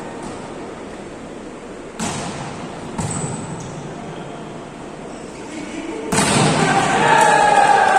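Volleyball being struck: two sharp smacks about a second apart, then a louder hit about six seconds in, followed by shouting and cheering that grows louder toward the end.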